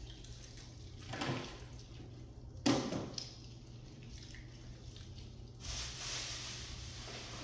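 Hands kneading and pulling sticky glue slime over a bowl, faint wet squishing, with one sharp click about two and a half seconds in and a steadier hiss from about five and a half seconds.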